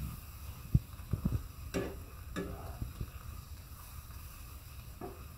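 A spatula stirring and scraping onion-and-spice paste frying in a nonstick wok, with several short knocks against the pan in the first few seconds and one more near the end, over a low steady rumble.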